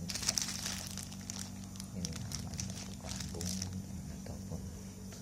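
Irregular crinkling and rustling, as of something being handled, over a steady low hum; the crinkling stops a little past halfway.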